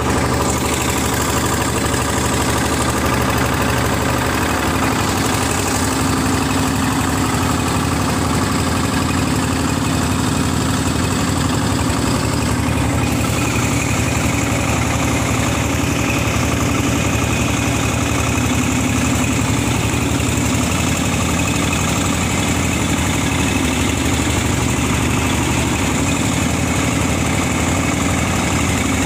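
Small engine of a mud-suction pump running steadily at a constant speed.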